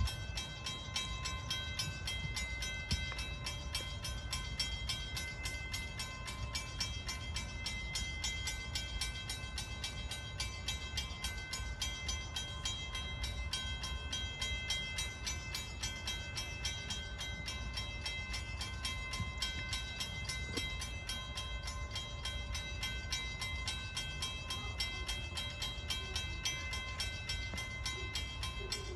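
Edison No. 1 4-4-0 steam train running on the track: a steady low rumble with fast, faint ticking and several steady high ringing tones over it.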